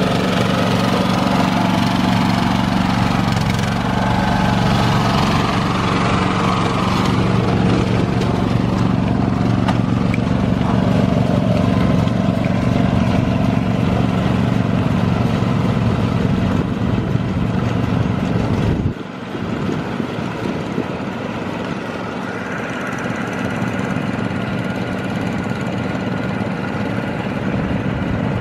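Small engine of a rice transplanter running steadily. About two-thirds of the way through its deep note drops away suddenly, and a quieter, higher mechanical running continues.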